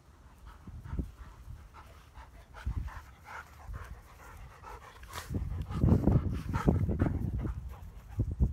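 Dogs panting up close, soft at first and loudest over the last few seconds.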